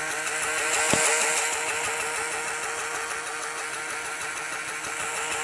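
Small battery-powered Lego motor running, a steady whir with a regular wobble from its gears, with a single click about a second in.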